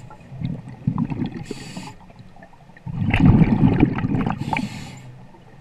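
Scuba diver breathing underwater through a regulator: a short inhalation hiss about a second and a half in, then a loud bubbling exhalation from about three seconds in, and another inhalation hiss near the end.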